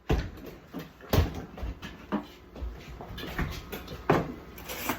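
Irregular knocks and thumps, roughly one a second, mixed with short pained gasps and groans from someone reacting to an extremely hot chili chip.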